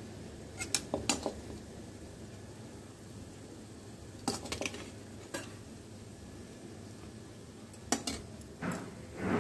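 A metal spoon clinking against a dish in short, scattered clicks, in small clusters, as spiced potato filling is scooped onto slices of bread.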